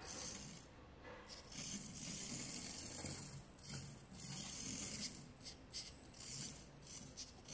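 SNT Q25 R27 1:64 micro RC car driving: its small electric motor and gears whir in stop-start bursts as the throttle comes on and off, with a thin high whine in some bursts.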